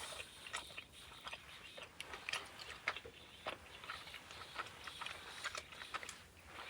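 A person chewing and eating food close to the microphone, with irregular soft clicks and crunches several times a second, in a small enclosed space.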